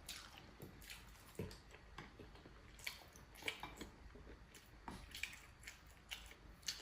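Faint eating sounds: chewing, with scattered small clicks every half second or so.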